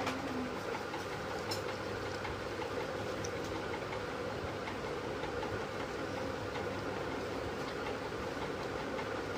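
A steady, unchanging mechanical hum, like a motor running, with a faint click about one and a half seconds in.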